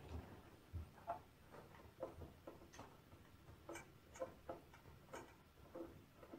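Faint, irregular small clicks and ticks of a Phillips screwdriver turning screws out of the rear panel of a UPS battery backup.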